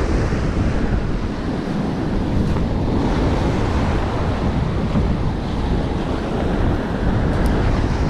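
Strong typhoon wind buffeting the microphone, with surf breaking and washing up the beach underneath. Steady, loud and rumbling throughout.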